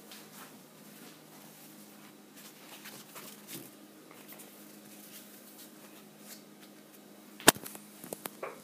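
Faint rustling and handling noise over a steady low hum, then a sharp knock about seven and a half seconds in, followed by a few lighter clicks.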